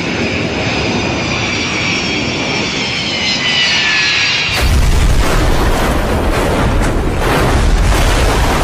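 Boeing 727 jetliner's engines whining as it comes in low, the whine falling in pitch. About four and a half seconds in, a sudden loud, deep rumble takes over as the airliner hits the ground and slides, breaking up with repeated crunching impacts.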